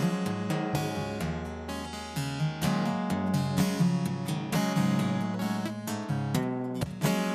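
Solo acoustic guitar playing, strummed and plucked chords in a quick, busy rhythm.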